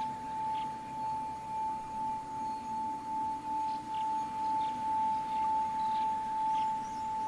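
Metal singing bowl sung by circling a mallet around its rim. It gives one steady ringing tone that swells and fades in a slow pulse as the mallet goes round.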